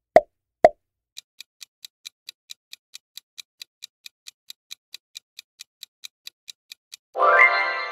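Quiz-game sound effects: two short pops in the first second as the answer boxes appear. Then a clock-like countdown ticking at about four to five ticks a second for nearly six seconds. About seven seconds in comes a bright chime that rings on and fades, the cue that time is up and the answer is revealed.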